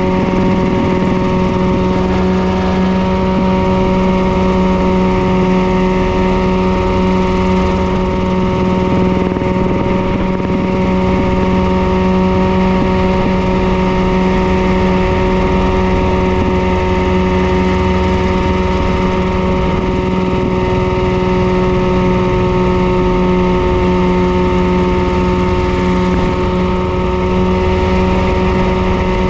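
Mirocopter SCH-2A coaxial ultralight helicopter in cruise flight, heard from the open pilot's seat: engine and rotors running steadily at one unchanging pitch.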